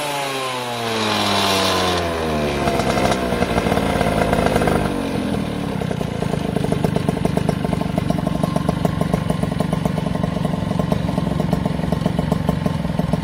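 Peugeot 103 50cc two-stroke moped engine with an expansion chamber exhaust, revved on the stand: its speed falls away over about five seconds, then it settles into a steady idle with an even firing beat.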